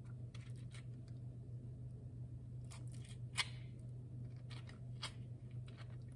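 Spoon scooping avocado slices out of the skin into a salad bowl: scattered faint clicks and scrapes, with one sharper click about three and a half seconds in, over a steady low hum.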